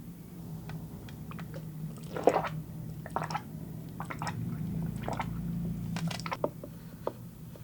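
Close-miked wet eating sounds: chewing and squishing of raw fish sashimi and flying fish roe, with irregular sharp wet clicks and crackles, loudest about two seconds in and again around six seconds.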